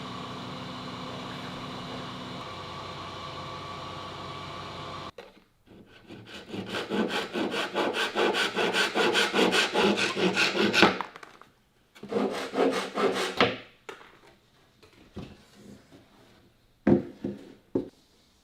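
Wood being worked by hand with rapid back-and-forth strokes, about four a second, in two runs, with a few single knocks near the end. Before the strokes, a steady machine hum cuts off abruptly about five seconds in.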